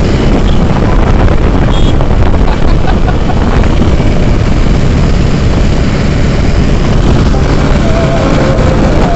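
Tractor's diesel engine running steadily while it drives along the road, with wind buffeting the microphone.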